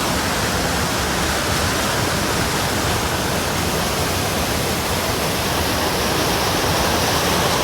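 Steady, loud rush of a cascading mountain creek.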